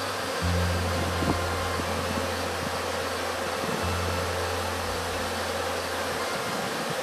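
Dense, continuous buzzing of a large crowd of honeybees flying around the hive entrances, with a steady low hum underneath.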